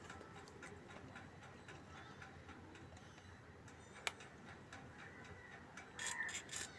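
Faint clicks and handling noises from a sewing-machine foot pedal being tested after repair, with one sharp click about four seconds in and a quick run of clicking near the end.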